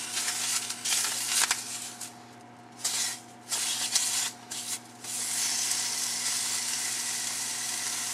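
Slices of country ham laid one by one into a hot stainless-steel frying pan, each giving a short burst of sizzle. From about five seconds in, the sizzle runs on steadily as the meat fries.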